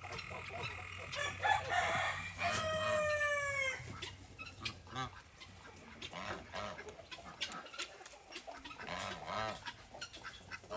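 A rooster crows once a few seconds in, a single call of about a second that falls slightly in pitch, with quieter clucking from chickens around it.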